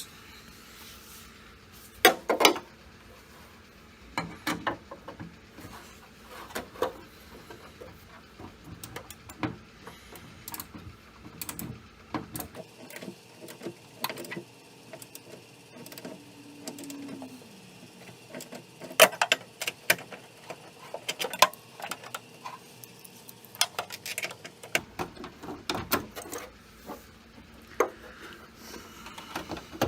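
Ratchet wrench clicking in short runs and metal clinks of tools as the nuts holding a door handle are tightened down.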